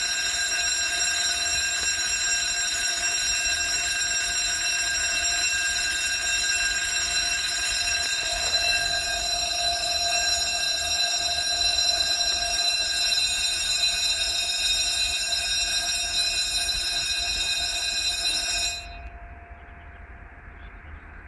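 Railway level crossing's electronic warning alarm, a loud steady tone of several pitches, sounding to warn road users of an approaching train; it cuts off abruptly near the end.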